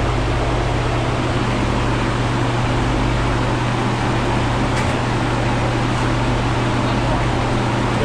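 Steady loud rushing of a large fan running, with a constant low hum underneath.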